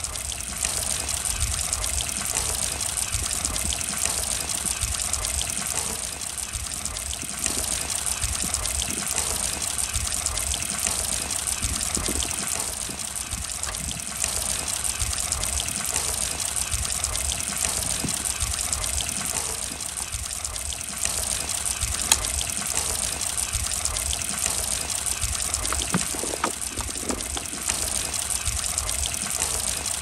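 Steady rush of running water with small trickling and gurgling sounds, over a fluttering low rumble.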